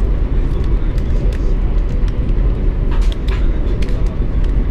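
Steady low rumble of a high-speed train running at speed, heard inside the passenger carriage, with a few light clicks about three seconds in.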